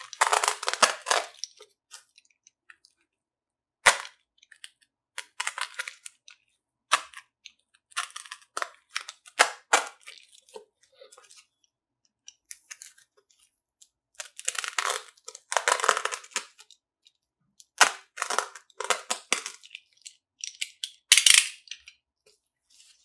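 Snap-off utility knife blade cutting through a thick 6 mm foam sheet: crackly, scratchy bursts of a second or two, separated by pauses, with one sharp click about four seconds in.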